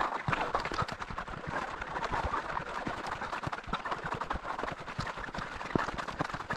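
Touring skis sliding and ski poles planting in snow as a skier climbs uphill, giving an irregular stream of crunches and scrapes with each stride.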